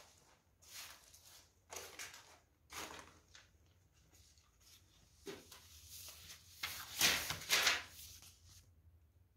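Dry rustling and crunching of loose papers and debris in a few irregular bursts, loudest in a cluster about seven to eight seconds in.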